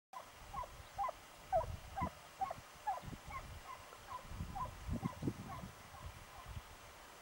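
Drever hounds baying far off as they follow the deer's trail: short, faint barks at about two a second, some overlapping. Low rumbles run underneath.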